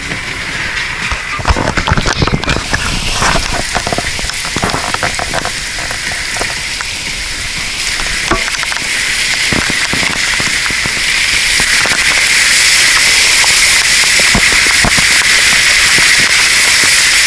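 Heavy downpour heard from inside a car: raindrops pelting the roof and windows as a dense crackling patter, with the sharpest hits a couple of seconds in. About twelve seconds in it grows into a louder, steady rush of rain.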